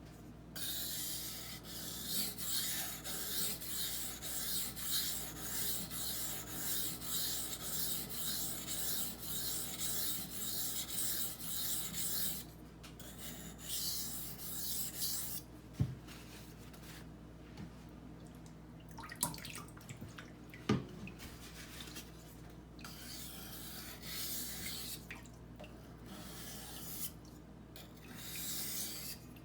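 A steel knife blade stroked back and forth on a wet Norton 1000-grit water stone: a gritty scraping hiss at about two strokes a second. After about twelve seconds the strokes stop for a while, with a few clicks in the quieter middle, and start again near the end.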